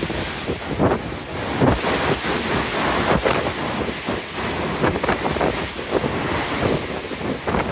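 Strong wind buffeting the phone's microphone in uneven gusts, over the rush of rough open-ocean waves below a cruise ship's deck.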